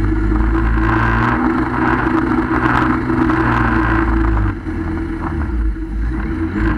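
Jet ski engine running at speed with the rush of water and spray against the hull. About four and a half seconds in the hiss of spray fades and the overall level dips, as the ski eases off.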